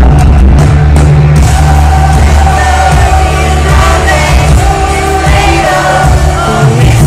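Live pop-rock band playing loudly with a lead vocal singing over heavy bass, recorded from within the concert audience.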